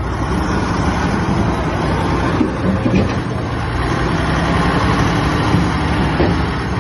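Heavy diesel engine of construction machinery running steadily at a constant pitch.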